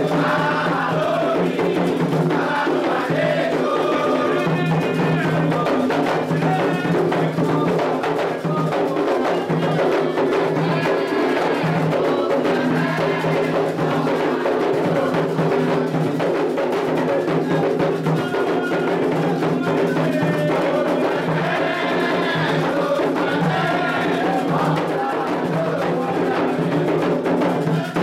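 Candomblé ritual music: atabaque hand drums and percussion playing a steady rhythm, with voices singing chants over them.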